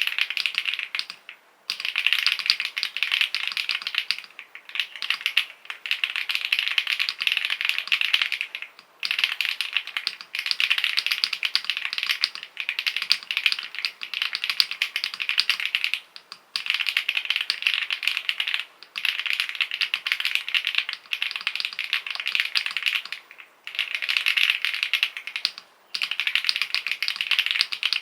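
Very fast typing on a custom mechanical keyboard with creamy-sounding switches: a dense, continuous clatter of keystrokes, broken by short pauses every few seconds.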